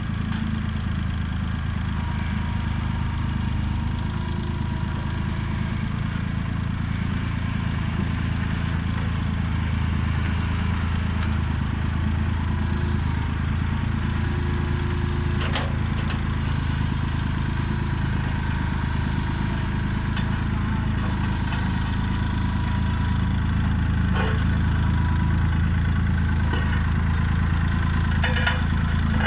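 Road roller engine running steadily at a low, even speed, with a few light clicks and knocks over it.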